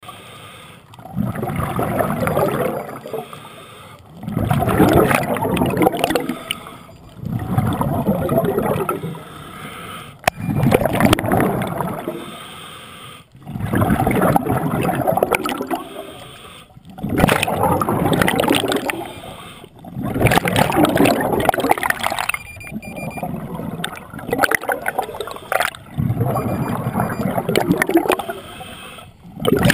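Scuba diver breathing underwater through a regulator: gurgling bursts of exhaled bubbles about every three seconds, each lasting about two seconds, with quieter stretches between breaths.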